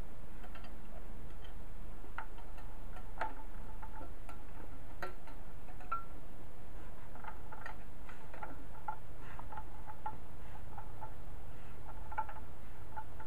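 Mercedes-Benz 300SL straight-six crankshaft, with pistons and connecting rods freshly fitted, being turned by hand. It gives irregular light metallic clicks and ticks over a low steady hum.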